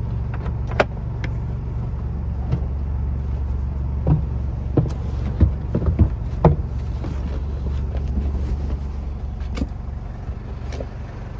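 Camper van bench seat being folded down by hand: the cushions and seat frame knock and clunk, with a cluster of sharp thumps around the middle, over a steady low hum.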